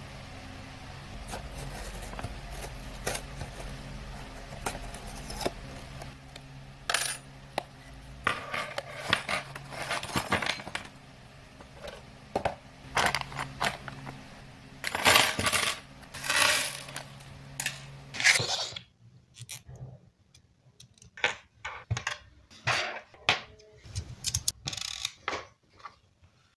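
Erector construction set being unpacked and handled: small metal parts (nuts, bolts, strips) clinking and rattling, with knocks from the cardboard box and bagged pieces set down. A steady low hum sits under the first two-thirds and drops away about 19 seconds in, leaving separate clicks and clinks.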